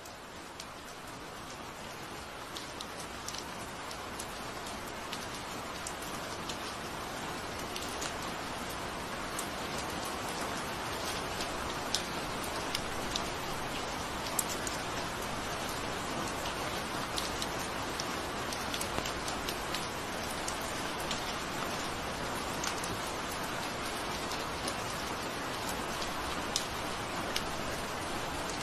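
Steady rain falling, a dense hiss with many separate drops ticking sharply on a surface. It fades in over the first several seconds, then holds even.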